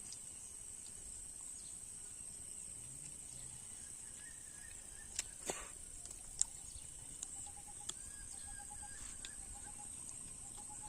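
Quiet outdoor ambience: a steady high insect drone, with faint short bird chirps in the middle and second half and a few sharp clicks.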